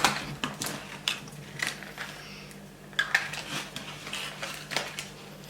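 Small plastic toy pieces and their packaging being handled, with scattered light clicks and rustles.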